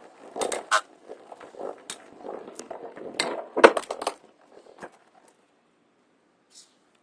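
Two Metal Fight Beyblade spinning tops whirring and rattling in a plastic stadium, with sharp metal clacks as they collide, stopping about five seconds in.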